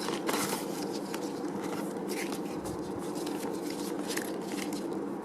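Paper instruction booklet being handled and leafed through: faint scattered clicks and rustles over a steady background hum.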